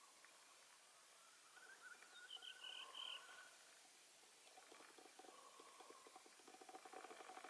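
Near silence with faint, distant animal calls: a few short pitched notes about two seconds in, then a fast rattling call from about halfway through.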